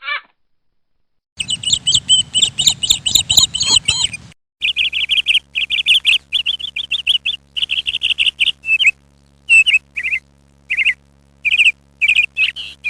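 A bird chirping in quick runs of short, high chirps. The runs break up into single calls with short gaps in the second half.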